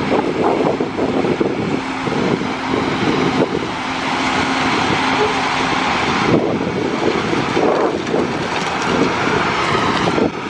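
Heavy harvest machinery running loudly and steadily during corn harvest, with a steady hum that drops out about six seconds in.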